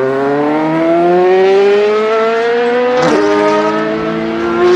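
Racing engine sound effect accelerating: its pitch climbs steadily, drops sharply at a gear change about three seconds in, then climbs again.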